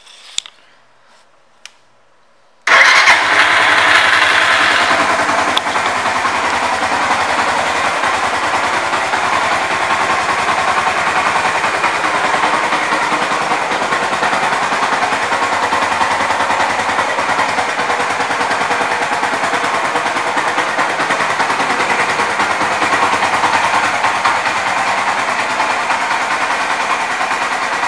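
A 2009 Suzuki GZ250's air-cooled single-cylinder four-stroke engine starting after a few faint clicks, catching about three seconds in, a little louder for the first couple of seconds, then idling steadily.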